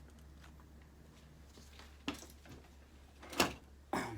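A few brief clicks and knocks of small metal and plastic lock parts being handled, the loudest about three and a half seconds in, over a faint steady hum.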